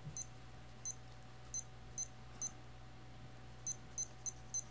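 Adidas APD6055 digital sports watch giving short, high button-press beeps as the time-zone hour offset is stepped: five irregular beeps, then a quicker, even run of about three beeps a second near the end.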